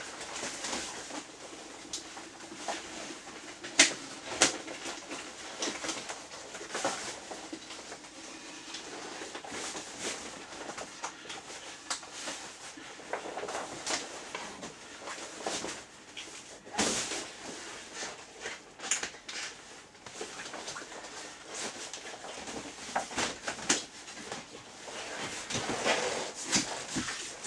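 Heavy PVC apron and rubberised clothing rustling, crinkling and creaking as they are handled and put on, with irregular sharp crackles and clicks.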